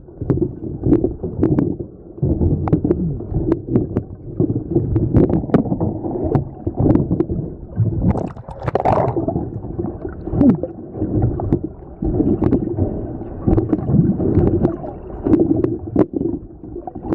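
Muffled underwater sloshing and gurgling of moving water, heard through a waterproof camera held underwater, surging unevenly and dotted with many small sharp clicks. About nine seconds in there is a brief, brighter gurgling burst.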